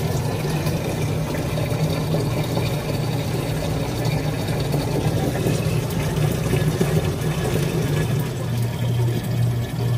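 Water vending machine filling a 5-gallon plastic jug: a steady stream of water pouring into the jug over the steady hum of the machine's pump. Near the end the hum starts pulsing about twice a second.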